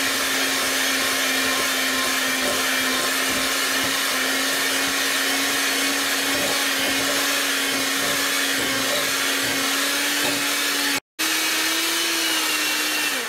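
Electric hand mixer running steadily, its beaters churning tamale dough in a glass bowl. It cuts out briefly about eleven seconds in, comes back slightly higher, then winds down and stops near the end.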